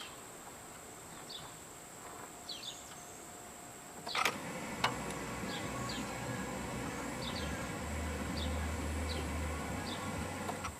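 Scattered high bird chirps over quiet background. About four seconds in comes a sharp click, then a steady low mechanical hum from the Chevrolet Malibu, which runs until just before the end.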